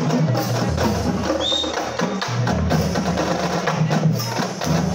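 Marching drumline playing a retreat cadence: crisp snare and wood-like clicks over pitched bass drum notes that step between pitches.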